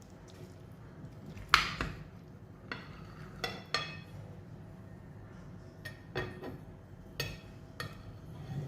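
A metal utensil clinking against metal cookware, about six sharp ringing knocks spread irregularly through the stretch, over a steady low hum.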